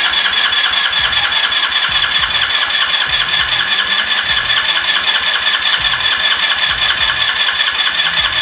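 GY6 four-stroke go-kart engine being cranked by its electric starter: a steady starter whine with an even, rapid chugging, running on without the engine catching. The new carburetor is not yet primed and its float bowl is still filling with fuel.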